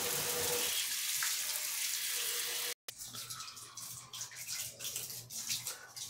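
Hand-held shower spraying water steadily onto a car battery's plastic case in a bathtub, cutting off abruptly a little under three seconds in. After that, quieter room sound with a few faint clicks.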